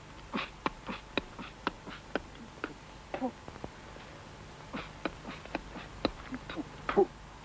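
Irregular sharp clicks and puffs from a healer's mouth, about two or three a second, with a short grunt about three seconds in and a louder one near the end.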